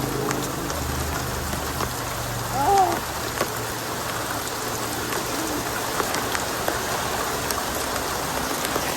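Steady light rain falling, with many scattered drop ticks. A short gliding call about three seconds in is the loudest moment.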